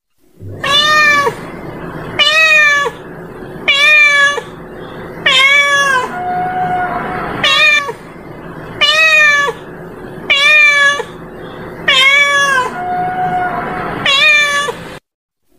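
Domestic cat meowing over and over, about nine meows roughly a second and a half apart, each one dropping in pitch at its end.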